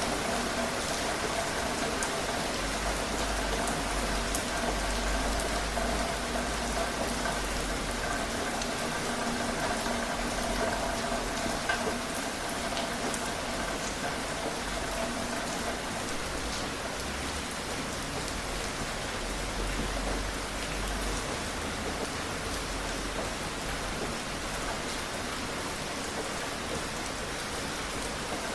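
Steady rain falling, an even hiss, with patches of low rumble and faint steady tones underneath in the first half.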